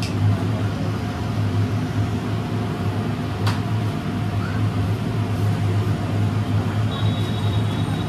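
Steady low mechanical hum from a running motor or fan, with a single sharp click about three and a half seconds in and a brief high steady tone near the end.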